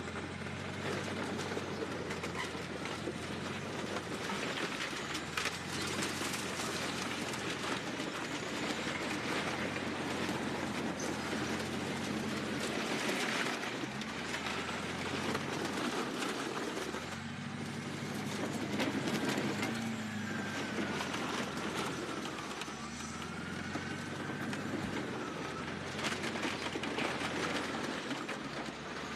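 Bulldozer's diesel engine running steadily under load, with a high squeal that wavers in pitch about two-thirds of the way through.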